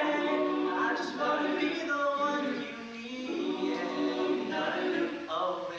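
Male a cappella group singing held close-harmony chords in several voice parts. The chords dip briefly about halfway through, then swell again.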